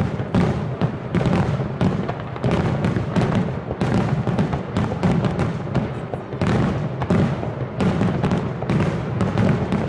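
Dense barrage of aerial firework shells bursting, many overlapping booms and cracks several times a second without a break.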